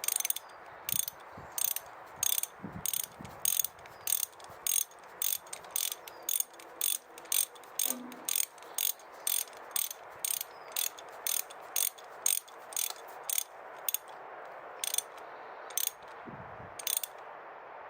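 Ratchet wrench clicking in steady back-strokes, about two or three clicks a second, as a new spark plug is screwed into the cylinder head. The clicks slow to a few spaced ones near the end as the plug seats.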